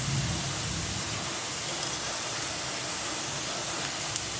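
Chopped onions and powdered spices sizzling in butter in a kadai: a steady, even hiss, with one small pop near the end.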